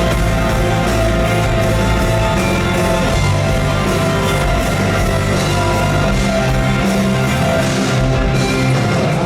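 Live band music: a loud, steady instrumental passage with no clear singing.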